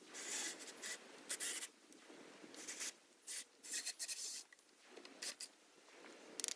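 Short, irregular rubbing and scraping strokes on wood, about a dozen in a row, from hand work on top of a crossbeam made from old telephone-pole pieces.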